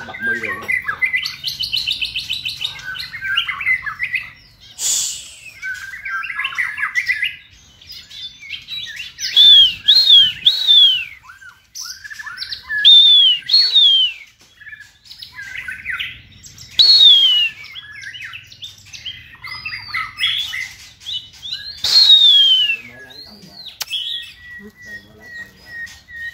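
Caged white-rumped shamas singing: a varied song of rapid warbles and chatter broken several times by loud, clear whistled notes that swoop downward.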